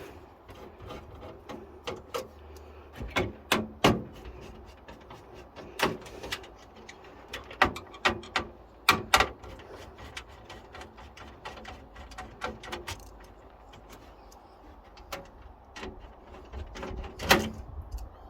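Irregular clicks and knocks of metal computer-case parts and tools being handled as a desktop PC is taken apart to remove its motherboard, with several louder knocks scattered among them.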